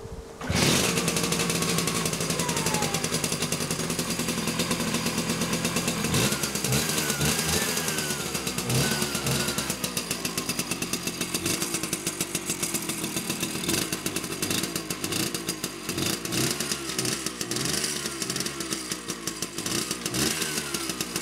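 1980 Vespa ET3 Primavera's single-cylinder two-stroke engine starting, catching about half a second in, then running with a fast, buzzy beat and several rises and falls in pitch as the throttle is blipped.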